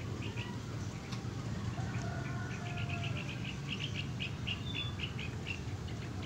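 Small birds chirping in quick short notes, several a second from a few seconds in, over a steady low hum.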